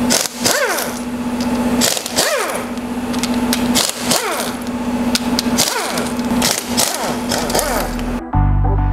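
Pneumatic impact wrench hammering the engine side-cover bolts of a Royal Enfield Bullet 350 loose, in a series of short bursts, each ending in a falling whine as the tool spins down. Music comes in near the end.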